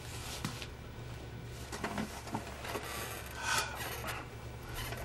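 Faint rubbing and creaking of an office chair as someone sits in it and shifts about, over a steady low room hum.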